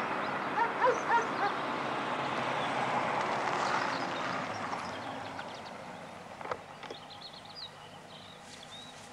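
Small saloon car's engine and tyres as it drives up and pulls to a stop, the sound fading away after about five seconds. A few short bird calls sound over it about a second in, with faint high chirps near the end.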